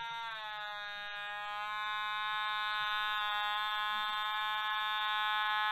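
Otamatone playing one long held note, a buzzy electronic tone whose pitch slides down at the start and then holds steady.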